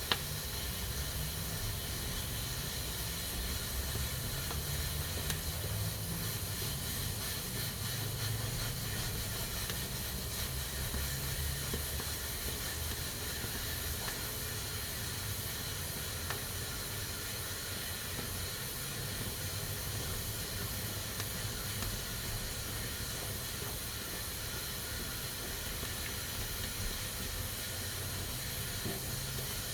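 Pressure cooker hissing steadily as steam escapes its valve, with a low rumble underneath and a brief click right at the start.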